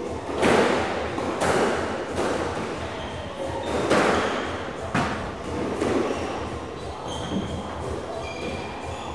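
Squash rally: the hard rubber ball is struck by racquets and smacks off the court walls, sharp echoing hits about once a second. Short squeaks of shoes on the wooden floor come in the second half.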